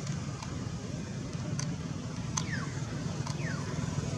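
A steady low hum, like a distant engine running, with a few short, high, sharp calls; two of them, around the middle and after about three seconds, slide downward in pitch.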